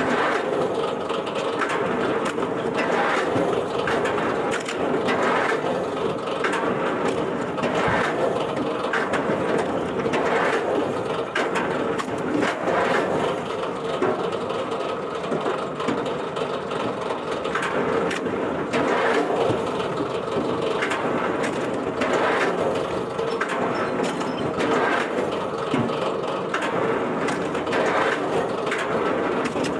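Heavy wood-processing machinery running steadily, with a constant hum and irregular knocks and cracks throughout.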